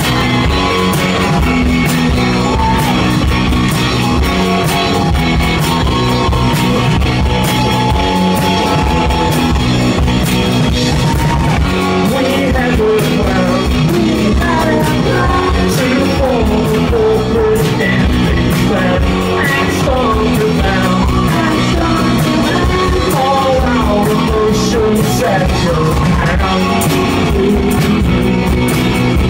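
Loud live indie rock band playing: drums, electric guitar and a shaken tambourine, with sung vocals over the top.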